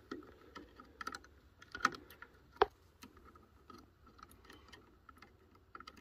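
Irregular light clicks and taps of multimeter probes being worked against a gas valve coil's plastic terminal connector and wiring while setting up a resistance check, with the sharpest tap about two and a half seconds in.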